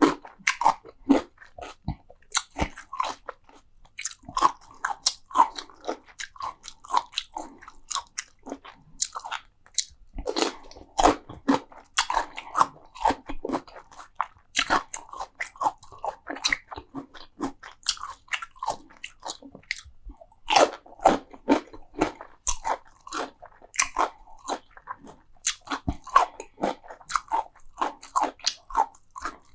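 Close-miked mouth sounds of a person biting and chewing crunchy food: dense runs of sharp crunches broken by brief pauses.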